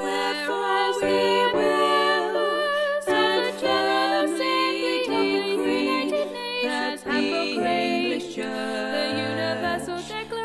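A slow song sung by women's voices in held notes over a steady low note; lower notes join about three-quarters of the way through.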